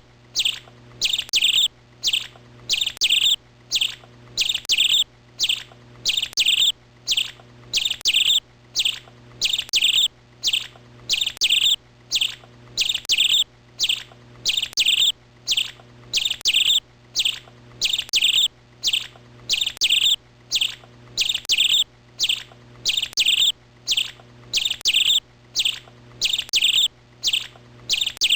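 A songbird chirping over and over in a very even rhythm, about two short chirps a second, over a faint steady low hum.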